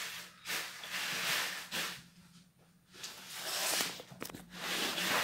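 Thin nylon rain jacket rustling and crinkling as it is handled and smoothed by hand, in swells, with a brief pause about two seconds in before the rustling picks up again.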